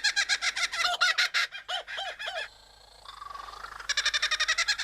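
Superb lyrebird singing a kookaburra-like laughing call. The notes are a rapid, repeated chuckle with a few slower arched notes. The call breaks off briefly past the halfway point and resumes as a fast trill near the end.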